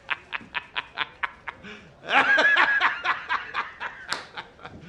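A man laughing hard in quick, staccato 'ha-ha-ha' pulses, about five a second. About two seconds in it breaks into a louder, higher cackle, then goes back to rapid pulses that fade out near the end.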